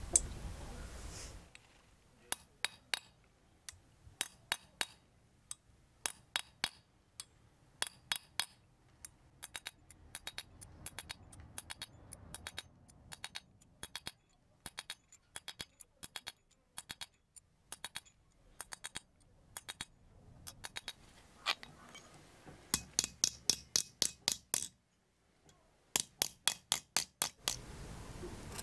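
Steel punch struck into a thin brass plate on an anvil, dimpling a textured scale pattern: short ringing metallic taps, at first singly and in pairs, then in quick runs of about five or six a second near the end.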